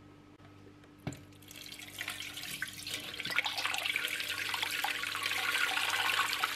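A stream of water pouring into a pot over a whole raw chicken, filling it for boiling. A click about a second in, then the splashing hiss grows louder and cuts off near the end.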